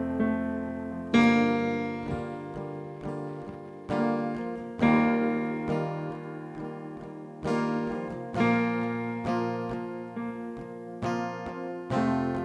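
Acoustic guitar strumming chords with no singing. A strong strum comes about every three and a half seconds and rings out and fades, with lighter strums between.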